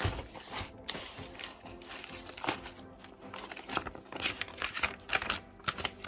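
Plastic wrap and paper crinkling and rustling in irregular bursts as hands unpack a boxed microphone, over steady background music.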